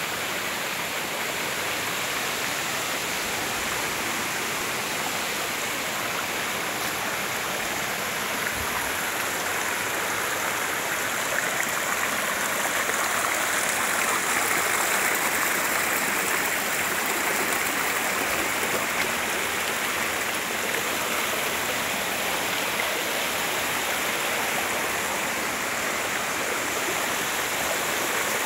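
Shallow rocky stream running over stones and small cascades: a steady rush of water.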